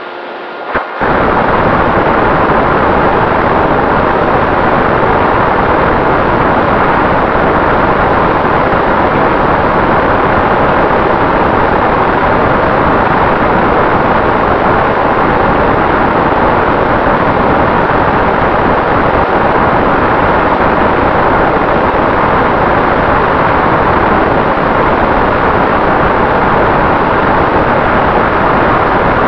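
Loud, steady rush of wind over the Volantex Ranger's onboard camera microphone in flight, with a faint steady propeller tone underneath. It cuts in suddenly about a second in.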